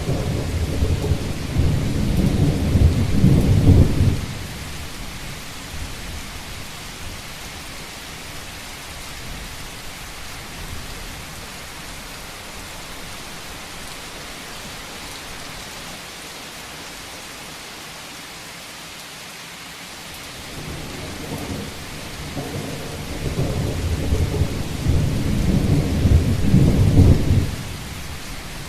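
Steady rain on a rooftop, a constant hiss, with two long low rumbles over it. One rumble fills the first four seconds and stops suddenly. The other builds from about two-thirds of the way in and cuts off shortly before the end.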